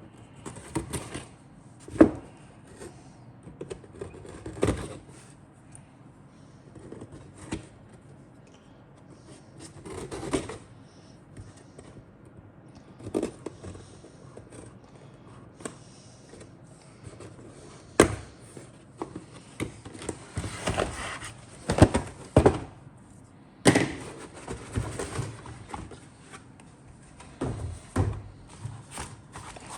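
A cardboard model kit box and its contents being handled: irregular knocks, taps and scrapes of card and plastic, with sharper knocks about two seconds in and again around eighteen and twenty-two seconds in.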